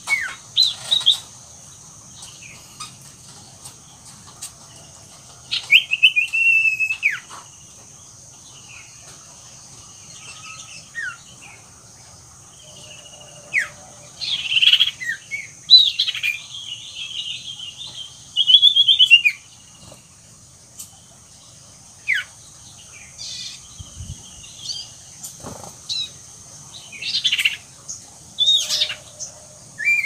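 Caged common iora singing vigorously in separate bursts of sharp chirps and whistled phrases, with gaps of a few seconds between them, over a steady high-pitched hiss in the background.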